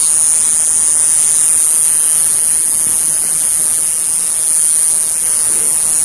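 Male citrus cicada (Diceroprocta apache) singing: a loud, steady, high-pitched buzz from its tymbals. It is picked up by a cell phone microphone, which the uploader says renders the song oddly.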